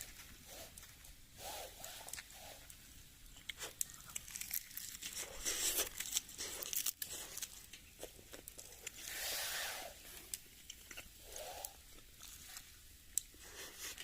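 Crinkling and rustling, as of packaging being handled, with many small clicks and taps. There are two longer rustles, about five and about nine seconds in.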